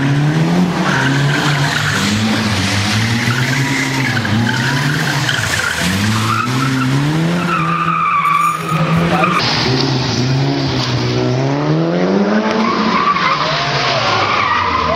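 Rally car engines revving hard and dropping back repeatedly through gear changes, with tyres squealing and skidding as the cars slide around cones on asphalt.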